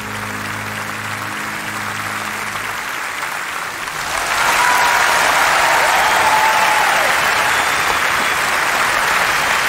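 Large audience applauding, swelling to a much louder ovation about four seconds in. The orchestra's last held chord dies away during the first seconds.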